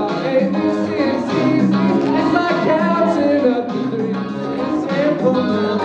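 Music with a singing voice, playing steadily.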